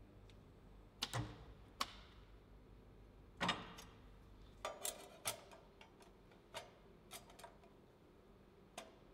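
Irregular sharp metallic clicks and knocks, about ten in all, from small steel sheet parts being handled and set down; the loudest knock comes about three and a half seconds in.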